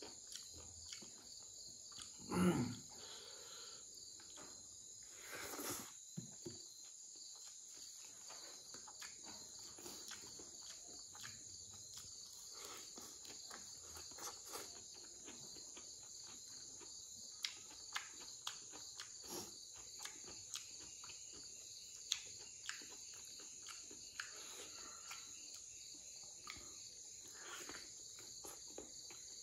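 Close-up eating sounds of pork ear and rice eaten by hand: irregular wet chewing and lip-smacking clicks, with one louder brief sound about two seconds in. Behind them runs a steady high chorus of crickets.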